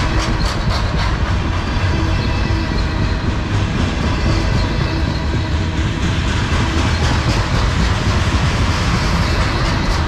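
Freight cars of a manifest train rolling past close by: a steady, loud rumble of steel wheels on rail, with clicks of wheels over rail joints near the start and again near the end.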